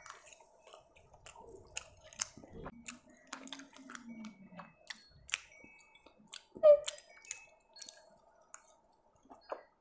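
Close chewing and mouth sounds of someone eating instant noodles, with scattered light clicks of a fork against a plate, and a short low hum partway through.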